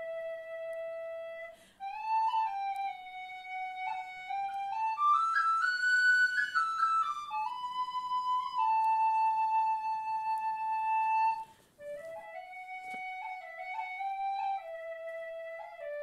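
Background music: a solo melody on a flute-like wind instrument, one line of held notes that climbs to its highest notes about halfway and then falls back, with two short breaks.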